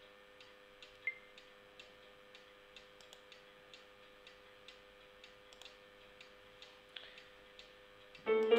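Faint, even ticking, about two ticks a second, over a faint steady hum. Loud background music comes in near the end.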